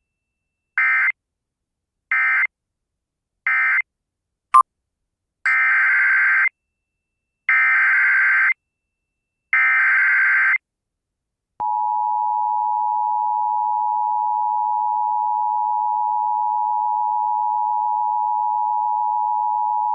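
Emergency Alert System tones. Three short SAME end-of-message data bursts close the tornado warning. After a brief click come three one-second bursts of warbling SAME header data announcing the next alert. Then, just past halfway, the steady two-tone EAS attention signal begins and holds.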